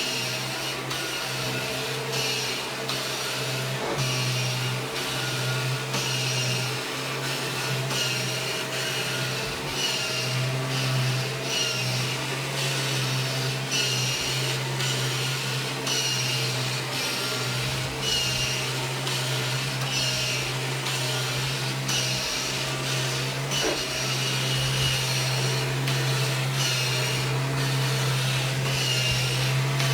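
A 1997 Kirby G5 upright vacuum cleaner running steadily with a constant low hum, its hiss swelling and fading about once a second as it is pushed back and forth.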